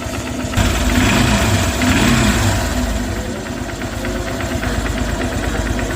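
Engine running with its cam chain tensioner freshly adjusted: it picks up speed about half a second in, then settles to a steady idle, and the tensioner's earlier knocking is gone.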